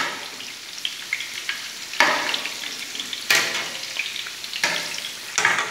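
Mixed-vegetable fritters (mücver) deep-frying in hot oil in a large stainless steel pot: a steady sizzle that flares louder about five times as a perforated skimmer stirs and turns them so both sides cook.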